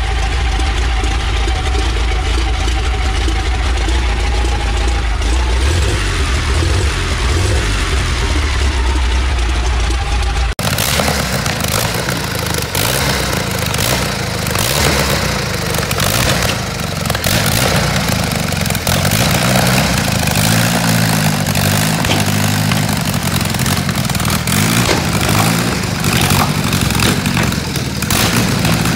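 Two large vintage aero engines in early racing-car chassis, one after the other. First an exposed aero engine running steadily with a deep low note; then, about ten seconds in, another exposed multi-cylinder aero engine running and being revved, its pitch rising and falling as the car moves off.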